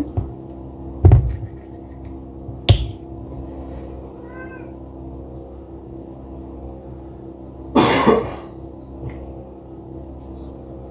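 A plastic syrup bottle being handled and squeezed over a mixing bowl: a heavy thump about a second in, a sharp click near three seconds, and a short hissing sputter around eight seconds. A steady hum runs underneath.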